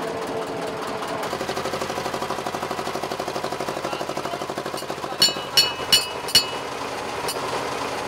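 Fishing boat's engine running with a steady rapid knocking beat, and a signal bell struck four times in quick succession about five seconds in. The number of bell strikes tells the engine man what speed to run the boat at.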